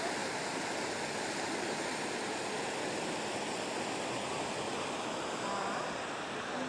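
River water rushing past in a steady, even rush.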